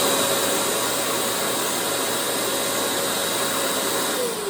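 Stick vacuum motor running at a steady whine with a rushing air hiss, then switched off about four seconds in, the whine falling in pitch as it winds down.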